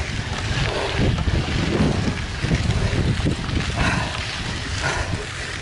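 Wind buffeting the microphone of a mountain biker's camera while riding along a trail: a steady, low rushing rumble.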